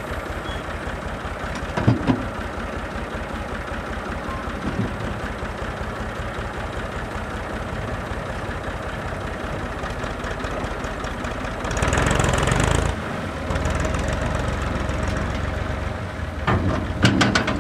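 Massey Ferguson 255 tractor's diesel engine running steadily with an even low knock while its rear transport box tips and empties. A louder rush lasting about a second comes around twelve seconds in, with a few short knocks before and near the end.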